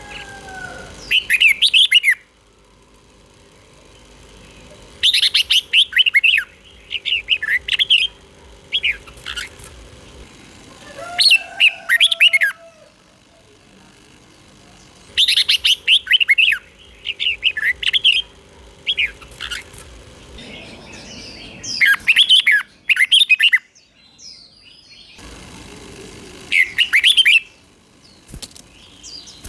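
Red-whiskered bulbul singing: short, bright, warbled phrases of a few quick notes, repeated in bursts every few seconds with brief pauses between. A faint steady low hum runs underneath.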